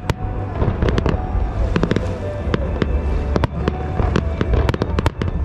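Aerial fireworks bursting in rapid succession: many sharp bangs and crackles over a continuous low rumble.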